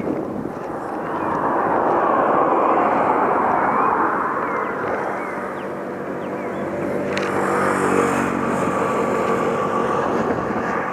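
Road vehicles passing close by: tyre and engine noise swells and fades, then a second vehicle with an engine hum swells up about eight seconds in.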